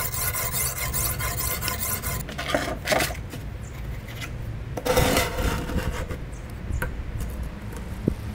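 Kitchen knife blade stroked rapidly back and forth on a wet sharpening stone, a quick rhythmic rasping scrape with a thin steady tone over it, which stops abruptly about two seconds in. After that, a few separate scrapes and knocks as the stone is handled on the workbench.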